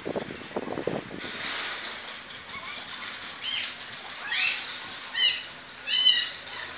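A small bird chirping: short, high, arching chirps, about one a second, starting a few seconds in and growing louder. Before them come a few soft thumps and a brief rush of noise.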